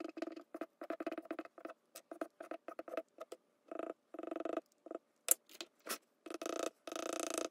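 A charcoal drawing tool rubbing on paper in many short strokes with brief gaps between them, with longer continuous strokes near the end.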